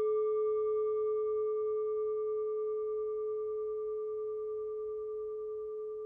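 A struck singing bowl ringing out and slowly fading: one low note with fainter, higher, bell-like overtones above it.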